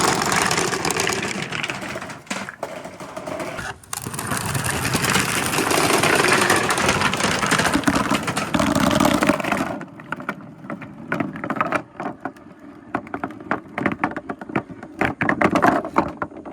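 Many marbles released at once rolling and rattling down a marble run's gutter channels, a dense continuous rumble. About ten seconds in it thins out into separate clicks and taps as the last balls trickle through the track.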